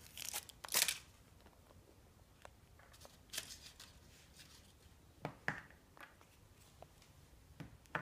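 Foil wrapper of a Kinder Surprise egg crinkling and tearing as it is peeled off, then a few scattered short rustles and light taps of hands handling the egg and its plastic toy capsule.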